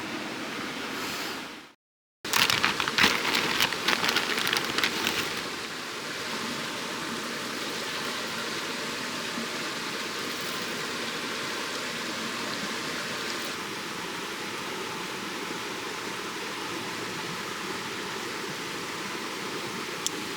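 Steady outdoor rushing noise, like running water or rain, with a burst of crackling clicks for a few seconds after a brief silent cut about two seconds in.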